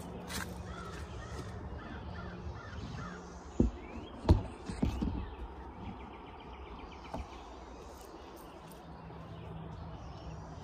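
Handling knocks as the phone is set down: two sharp thumps about three and a half and four seconds in, followed by a few smaller bumps and a click. Birds call in the background throughout.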